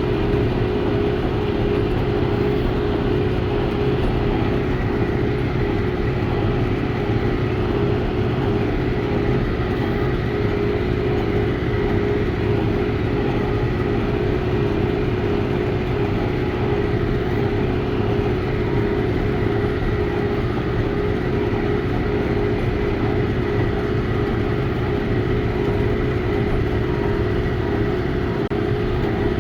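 Ford 532 square baler and the John Deere 6120E diesel tractor pulling it, running steadily together with a constant hum and drone.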